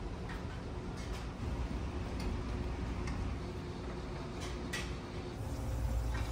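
Steady low machinery hum, with a few scattered light clicks at irregular intervals.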